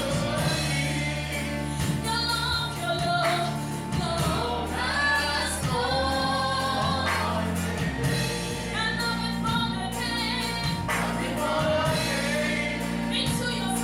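Gospel worship song: a group of voices singing over a steady band accompaniment.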